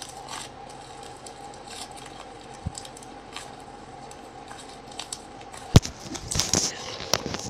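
Slime being pressed and poked by hands, with faint squishing and crackling over a steady faint hum. A sharp click comes just before 6 seconds in, followed by a few louder squelches.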